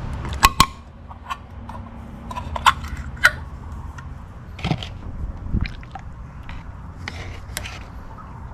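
Scattered clicks and light knocks from handling a can of engine oil treatment and a funnel at the engine's oil filler while the treatment is added, over a low steady hum.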